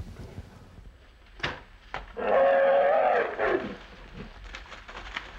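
A sharp snap, then a wild boar squeals once, loudly, for about a second and a half, the cry dropping in pitch at its end: the hog's cry on being hit by the hunter's arrow.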